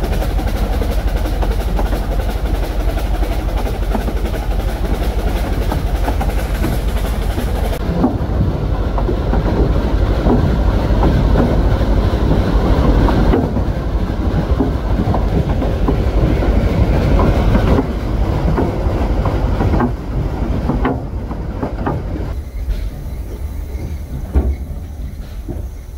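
Narrow-gauge steam train running along the line: a steady rumble with the irregular clatter of the wheels on the rails. The sound changes abruptly at several cuts and grows quieter near the end.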